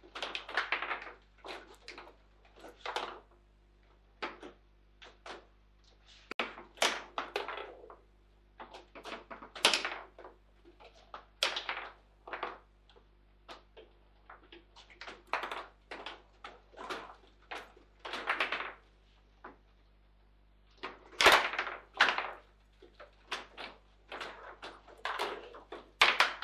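Table football in play: plastic figures striking the ball and the rods knocking against the table make a run of irregular sharp knocks and clacks. A loud knock comes about 21 seconds in.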